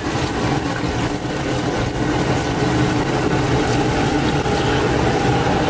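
Bhatura deep-frying in a large kadai of hot oil, the oil sizzling steadily, over a constant low mechanical hum.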